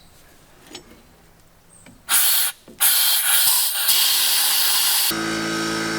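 A pressurised spray hisses loudly in two blasts, a short one about two seconds in and then a longer one, as a steel shaft is cleaned. Near the end a steady hum with several even tones comes in under the hiss.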